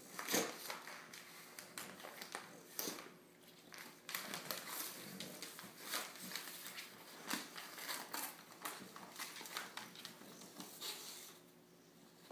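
Gift wrapping paper crinkling and rustling in irregular bursts as a bulldog noses and paws at a wrapped present and shoves it across a hardwood floor. It dies down about a second before the end.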